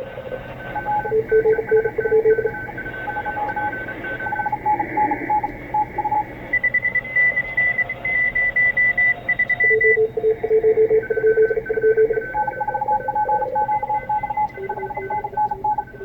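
Several Morse code (CW) signals at different pitches keyed at the same time, heard through the receiver audio of an Icom IC-7610 tuned to the 20-meter amateur band, crowded with contest stations. Underneath them runs a steady band hiss.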